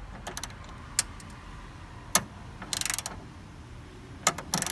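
Hand ratchet wrench loosening a 10 mm bolt: two short runs of rapid clicking, with a few sharp single clicks in between.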